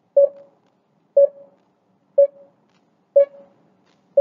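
Countdown timer sound effect: short, mid-pitched beeps, one each second, each dying away quickly.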